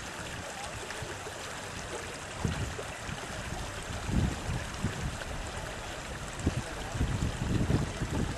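Floodwater rushing steadily, with a few low rumbles of wind buffeting the microphone.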